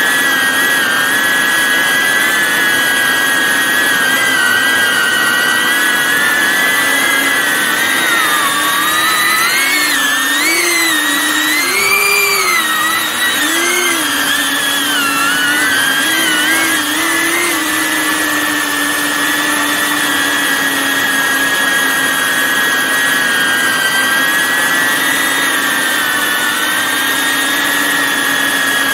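Multirotor drone's electric motors and propellers whining steadily in flight. The pitch wavers up and down for several seconds in the middle, then settles back to an even whine.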